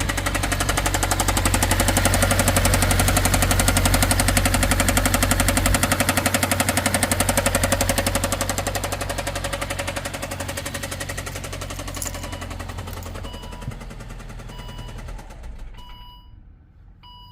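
Volvo engine running with a loud, rapid, even knock, the knocking fault the car was brought in for. The knock fades away over the last few seconds, while short repeating beeps begin about two-thirds of the way in.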